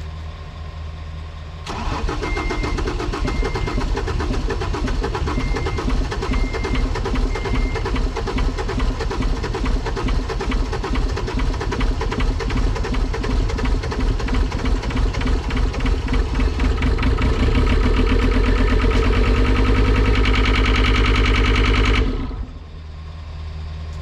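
A John Deere 326D skid steer's diesel engine being cranked over by the starter for a long stretch, pulsing unevenly, on its first start attempts after a crankshaft repair. A warning beeper gives a few short beeps a couple of seconds in. Near the end the engine catches and runs louder and steadier for a few seconds, then the sound drops off suddenly.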